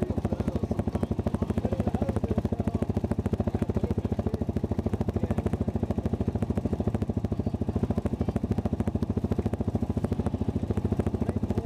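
ATV engine idling steadily, an even rapid chug of exhaust pulses that holds unchanged throughout.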